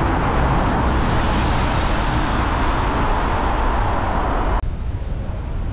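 Steady wind rush and rumble on a bike-mounted camera's microphone while cycling, mixed with road and traffic noise. About four and a half seconds in the noise abruptly drops and turns duller.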